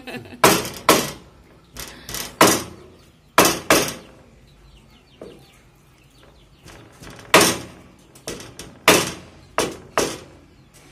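Meat being chopped with a cleaver on a chopping block: about a dozen hard, irregular chops in quick clusters, with a pause of a few seconds in the middle.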